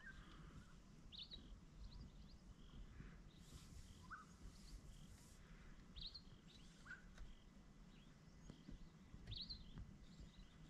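Near silence: faint, short bird chirps every second or two over a low, steady background rumble.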